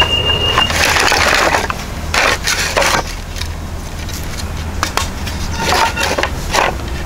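Sawn wooden planks being handled on a pile. About a second in there is a rustling scrape, then several short sharp wooden knocks and clatters as boards are lifted and knock against the stack.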